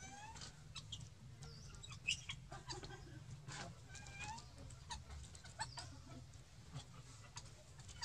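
Short rising squeaky chirps from animals, repeated several times, with scattered sharp clicks over a steady low hum.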